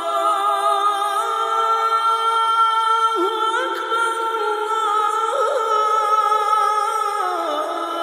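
Unaccompanied vocal chanting with long held notes, a cappella in the style of a nasheed. The pitch steps up about three seconds in and glides down near the end.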